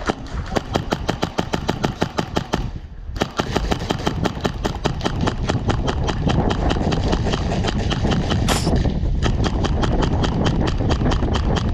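Airsoft rifle firing on full auto: fast, even strings of shots, a short break about three seconds in, then a long sustained burst.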